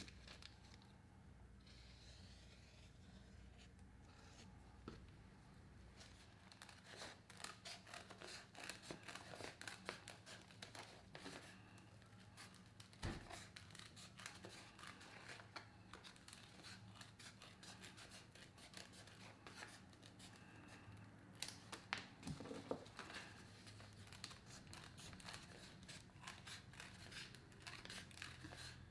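Faint, irregular snips and scrapes of hand tools cutting and trimming boot leather or sole material. They come in a quick run from about seven seconds in, ease off around the middle, and return with a few sharper clicks a little past twenty seconds in.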